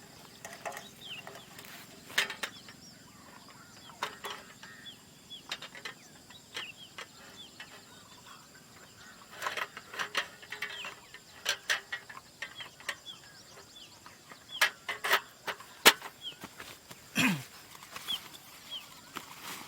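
Small birds chirping, a stream of short, high, falling notes, mixed with scattered sharp clicks and knocks, one of them loud.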